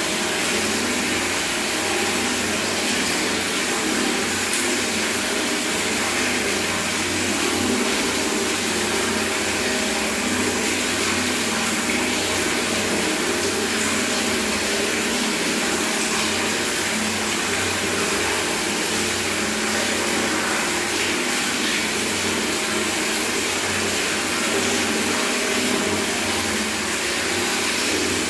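Tap water pouring steadily into a bucket: an even, continuous splashing with no breaks.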